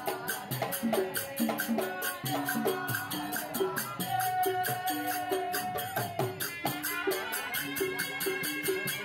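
Music with fast, steady rattling percussion under a repeating melodic pattern. A single higher note is held for about two seconds near the middle.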